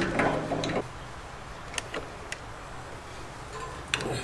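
A few short, sharp clicks of hands and tools working the tubing fittings on a gas water heater's control valve, over low room tone.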